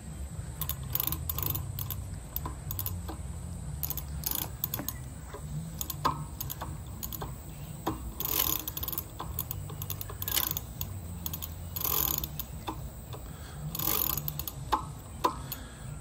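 E-bike chain running over the sprockets as the cranks are turned backwards through a cleaning cloth, the rear freewheel's pawls clicking, with louder spells of clicking every couple of seconds in the second half. A steady low rumble sits underneath.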